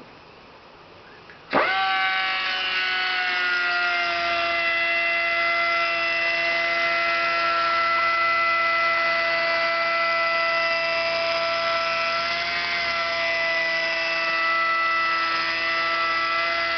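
Wet angle grinder with a 400-grit pad switched on about a second and a half in, then running with a steady high whine made of several tones, its pitch settling a little lower over the first few seconds as it works the edge of a fused glass panel.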